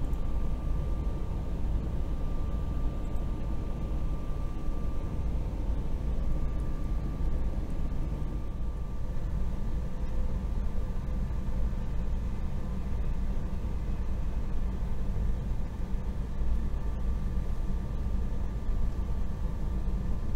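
Steady low running rumble of a Stadler KISS double-deck electric train, heard inside the passenger saloon, with a faint steady whine above it.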